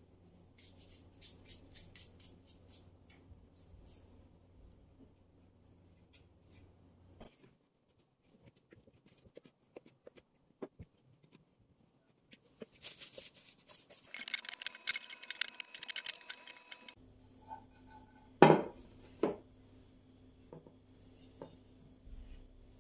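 Kitchen food-preparation handling sounds: a quick run of small snips or clicks, scattered light taps, a few seconds of hissing, then two sharp knocks.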